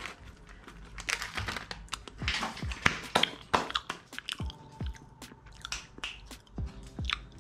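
Irregular chewing and crunching, close by, over soft background music.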